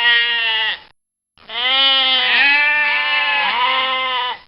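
Sheep bleating: one bleat that ends just under a second in, a short silent gap, then about three seconds of continuous, wavering bleating.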